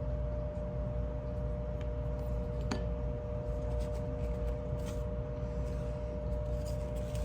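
Steady electrical hum with a constant tone throughout. A single sharp light click comes a little under three seconds in and a few faint ticks come near the end, from small metal parts of a disassembled folding knife being handled.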